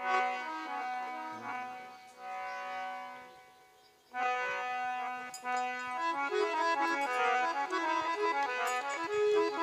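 Harmonium playing a bhajan melody with no singing: held notes for the first four seconds, a brief pause, then a quicker stepping tune.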